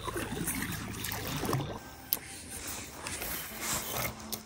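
Water lapping and splashing around a small inflatable fishing boat, with a low rumble that stops a little under two seconds in and a sharp click just after.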